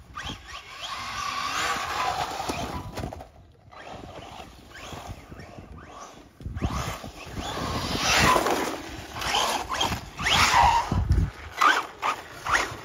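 Losi Tenacity DB Pro RC buggy driving in bursts: its brushless motor whines up and down in pitch with the throttle. It is quieter at first and louder and busier over the second half.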